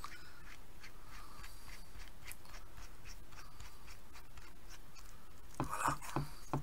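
Faint scraping and light clicks of a stainless-steel Kayfun 3.1 clone atomizer being screwed by hand onto the threads of a metal tube mod.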